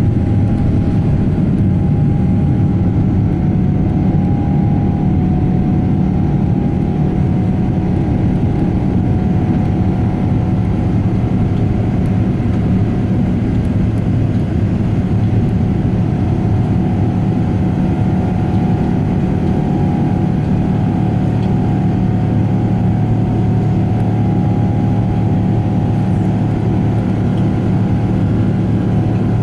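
Steady jet engine and airflow noise inside the cabin of a Boeing 777-300ER during the climb, its GE90 turbofans giving a constant low hum with a faint steady whine above it.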